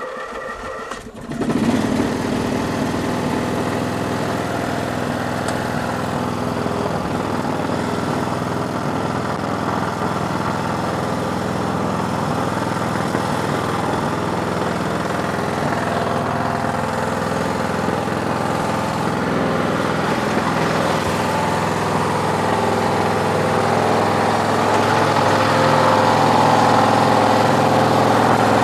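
Toro riding mower's engine cranked over by its starter for about a second, then catching and running steadily, a little louder near the end. The owner puts the slow cranking down to a weak battery and an old-style starter.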